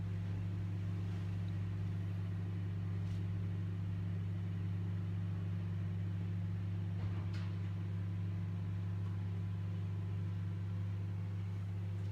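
Midea countertop microwave oven running with a steady low hum, and a few faint pops from clams bursting open in their shells inside, the clearest about seven seconds in.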